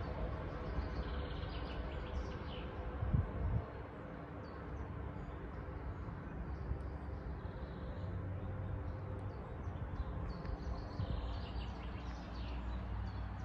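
Outdoor ambience: a steady low rumble with faint birdsong chirping now and then among the trees, and a brief low bump about three seconds in.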